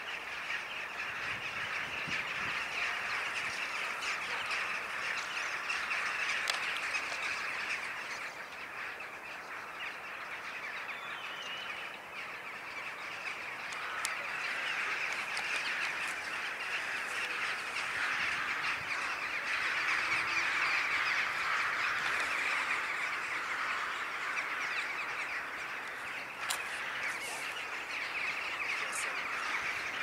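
A large flock of birds calling all at once in flight, a dense, continuous chatter of many overlapping calls that grows louder about two-thirds of the way through.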